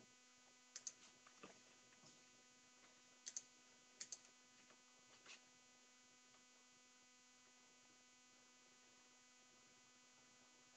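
Near silence: a faint steady electrical hum, with a few faint clicks in the first half.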